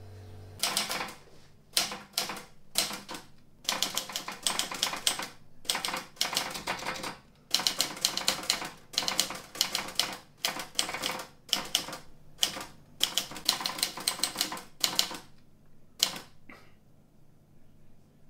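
Typewriter being typed on in quick runs of keystrokes with short pauses between them. It stops about fifteen seconds in, with a last couple of strikes a second later.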